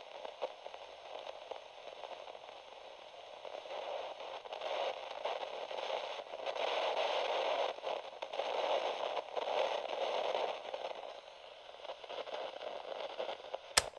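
Crackling static hiss, like an untuned radio, building up through the middle and dying down near the end, then cut off by a sharp click.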